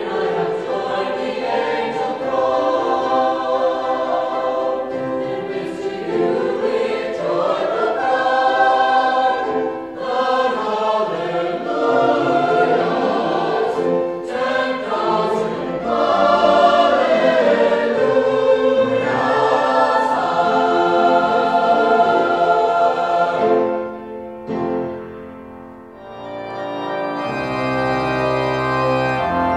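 A choir singing in full harmony. The singing fades out about three-quarters of the way through, and near the end a church organ comes in with sustained chords.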